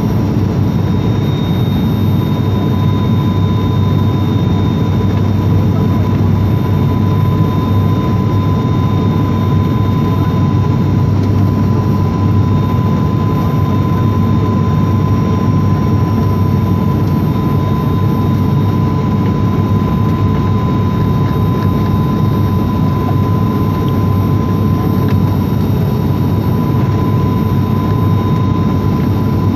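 Passenger aircraft cabin noise on final approach: steady engine drone and rushing air, with a steady high whine over it.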